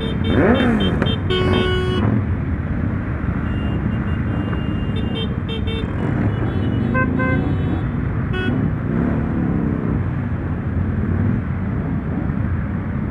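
Motorcycle engines running in a large group ride, with a steady low rumble. Vehicle horns toot repeatedly over it: one longer blast early on, then several short beeps through the middle.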